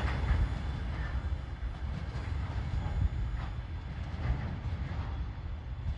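Freight train wagons rolling past, a steady low rumble with occasional faint wheel clacks over the rail joints.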